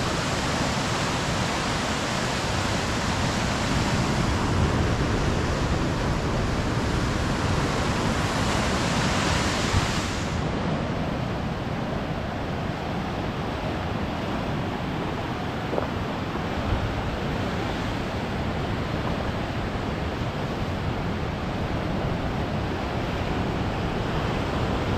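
Steady wash of ocean surf on a rocky coast mixed with wind on the microphone. The high hiss thins out about ten seconds in.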